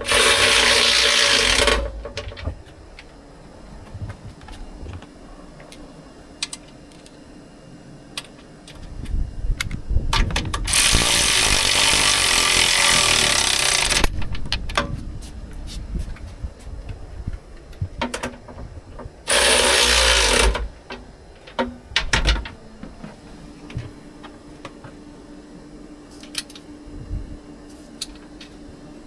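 Power tool with a socket running down the swivel seat's bolts in three bursts: briefly at the start, a longer run of about three seconds around the middle, and a short one about two-thirds through. Small clicks and clinks of metal fall between the bursts.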